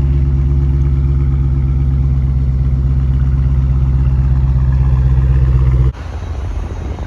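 2020 Dodge Scat Pack's 392 HEMI V8 idling steadily on its factory exhaust with the mid mufflers still in place. Near the end the steady idle cuts off abruptly and a quieter, rougher engine sound takes over.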